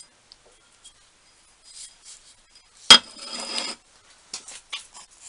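Metal parts and tools clinking as they are handled on a workbench, with one sharp metal knock about three seconds in followed by a short scraping rattle, and a few light clicks after it.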